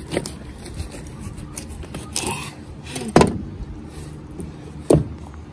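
Fillet knife working on a trout on a plastic fillet table: a few sharp knocks and scrapes of the blade against the board, the loudest about three seconds in, over a steady low hum.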